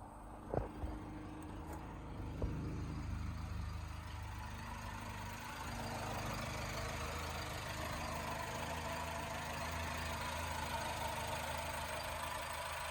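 Mitsubishi Lancer Celeste engine idling steadily, fed by its rebuilt mechanical fuel pump with a new diaphragm. A few sharp knocks come in the first couple of seconds, and the running gets slightly louder about halfway through.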